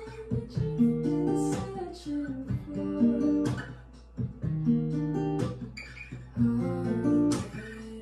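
Acoustic guitar strumming chords together with piano, a slow song played live.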